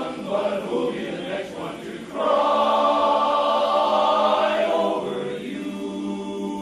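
Men's barbershop chorus singing a cappella in close harmony; about two seconds in the voices swell into a loud held chord, which eases off near the end.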